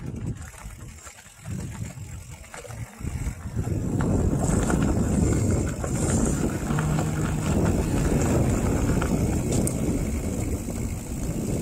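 Wind rushing over the camera microphone and mountain-bike tyres rumbling over a dirt and gravel track on a downhill ride, getting louder about four seconds in.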